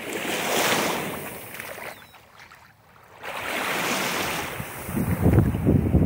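Small waves washing up and running back over a sandy shore: two swells of hiss with a short lull between them. Wind buffets the microphone near the end.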